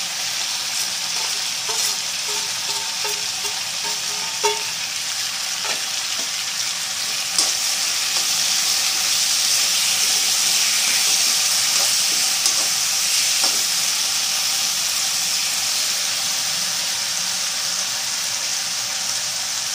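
Potato slices sizzling steadily in hot oil in an iron kadhai, being stirred with a metal spatula that knocks against the pan a few times. The sizzle grows a little louder about eight seconds in.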